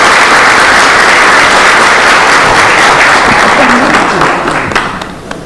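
A large audience applauding, a dense, steady clapping that dies away about five seconds in.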